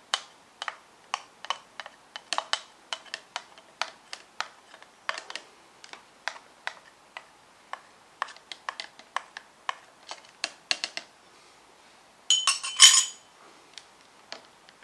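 Metal spoon scraping and tapping on a stick blender's shaft and the rim of a plastic jug, clearing off thick soap batter: a string of sharp clicks, two or three a second, then a louder scrape lasting under a second near the end.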